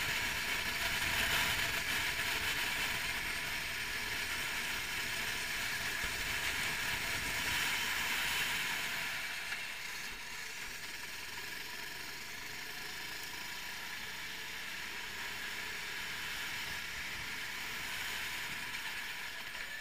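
A 390cc four-stroke kart engine running at speed, heard from an onboard camera with wind noise mixed in. It drops in level about halfway through and stays quieter after that.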